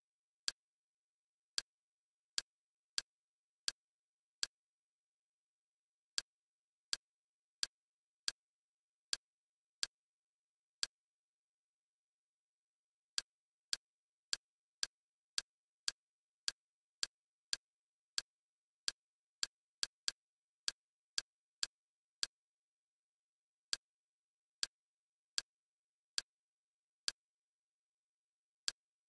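Kodi menu navigation clicks: a short, sharp click for each step as the highlight moves down a list, coming irregularly about one to two a second, with a pause of about two seconds near the middle.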